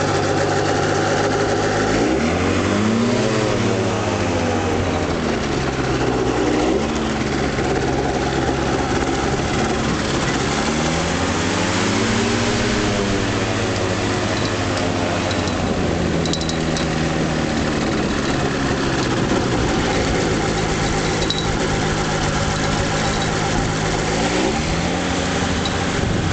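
Engine of a weight-shift microlight trike (motorized hang glider), heard from on board while taxiing over grass. Twice the revs rise and fall back, then they climb again near the end.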